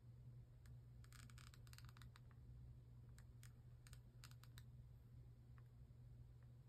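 Faint scratching of a pen tip on paper as lines are drawn, in short spells of small clicks and scrapes, over a low steady hum.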